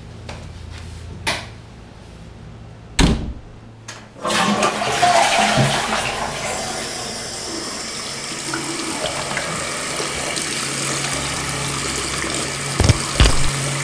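A couple of knocks, one louder thump about three seconds in, then a bathroom sink faucet turned on about four seconds in, opening with a loud gush and settling into water running steadily into the basin as hands are washed under it.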